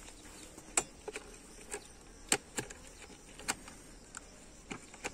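Metal hive tool clicking and tapping against a wooden hive lid and its metal latch clips, about eight sharp clicks at irregular intervals, over a faint hum of bees.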